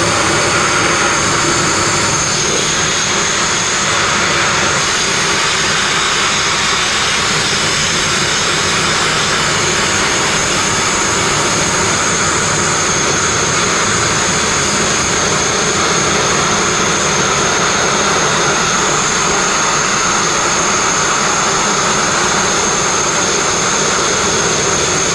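Sandblasting nozzle running continuously, a loud steady hiss with a high whistle through it, as abrasive strips two-pack epoxy paint off a steel narrowboat rudder.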